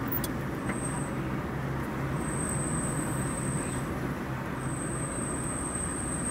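Steady engine hum and road and wind noise heard from a moving vehicle on the road. A thin, high, steady whine comes and goes three times over it.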